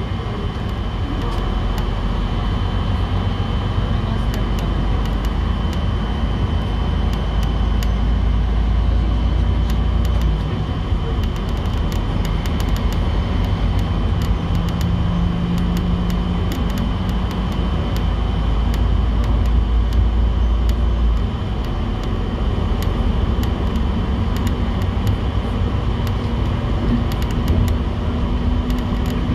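City bus in motion: steady engine and road noise, with the deep rumble easing back twice, about ten and twenty seconds in.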